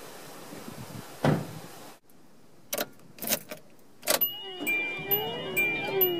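A car door shuts with a single thump, then keys click and rattle as a key goes into the ignition. Near the end, music with sliding, sweeping tones and light ticks fades in.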